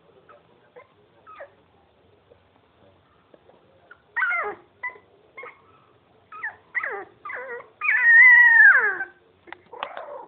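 Miniature pinscher puppy crying: faint small sounds at first, then from about four seconds in a run of short high whining cries, and near the end one long, loud cry that falls in pitch.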